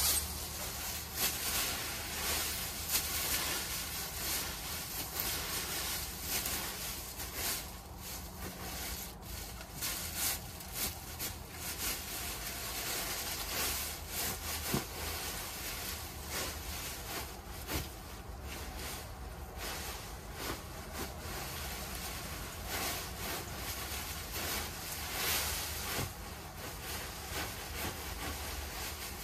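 Dry fallen leaves rustling as a garden fork digs into a leaf pile and stirs and tosses them, in uneven strokes.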